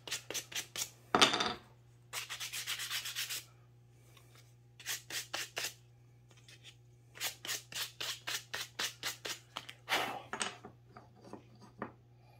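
Hand-sanding a small pine puzzle piece with a folded sheet of sandpaper to soften its edges: quick back-and-forth rubbing strokes, several a second, in bursts with short pauses between. A few faint clicks near the end.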